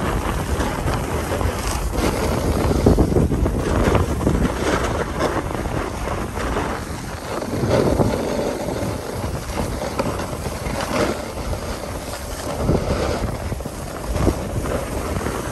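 Wind buffeting the microphone while a snowboard slides and scrapes over packed, groomed snow during a run, in an uneven rushing noise that swells and eases.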